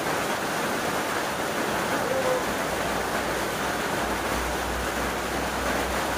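Steady rushing noise with no distinct events, and a low hum that comes in about halfway.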